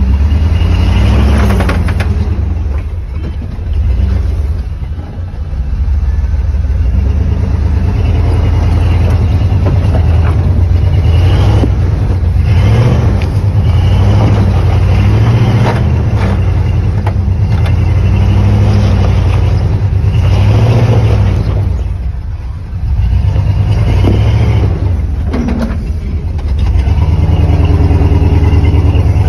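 Off-road 4x4's engine working under load while rock crawling, revving up and easing off in slow swells every few seconds. Now and then a short knock cuts in over the engine.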